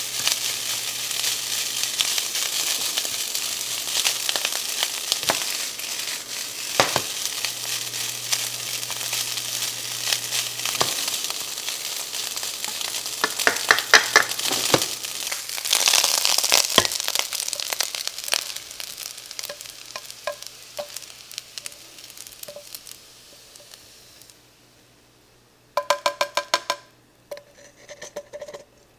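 Frozen fried rice sizzling in a nonstick frying pan while a spatula stirs and scrapes it, with scattered clicks of the spatula against the pan; the sizzle dies away near the end. Two short runs of rapid beeps follow.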